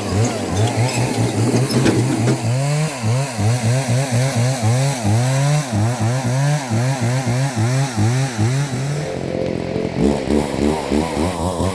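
Chainsaw cutting dead juniper wood, its engine pitch rising and falling over and over, about twice a second, as the throttle is opened and eased off through the cut.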